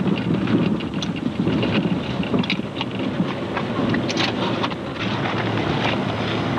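Rumbling road and wind noise of a moving car, with scattered crackles.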